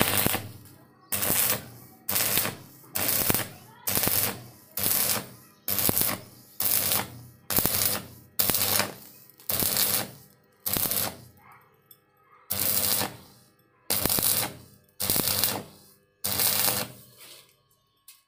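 Stick (arc) welding electrode crackling on galvanized steel in short bursts, the arc struck and broken about once a second to build a bead across a wide gap, with one longer pause near the middle.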